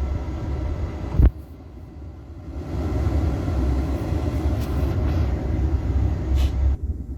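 A steady low rumble with a single sharp thump about a second in. After the thump it drops away for about a second and a half, then returns.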